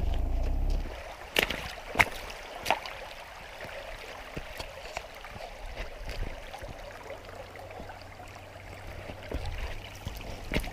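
Shallow stream running over a stony bed, with three sharp clicks one to three seconds in. A low rumble in the first second cuts off abruptly.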